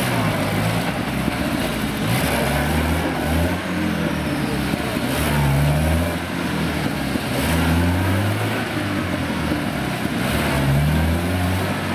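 UAZ Bukhanka (UAZ-452) van engine revving up and dropping back about five times, every two to three seconds, as the van works through deep mud under load.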